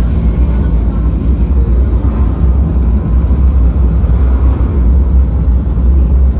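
Loud, steady deep rumble with a hiss over it, like a large engine running, holding level throughout without a break.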